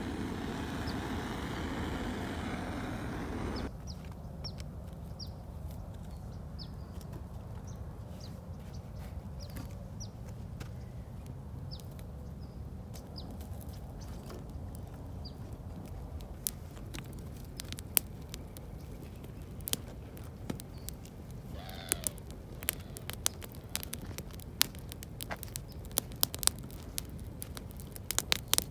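A butane torch hissing steadily as it lights dry tinder, cutting off sharply a few seconds in. The small campfire then burns with a crackle of sharp pops that come faster and louder toward the end.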